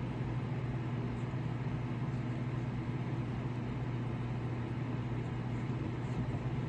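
Steady low background hum that does not change, with a strong low drone and a noise hiss above it.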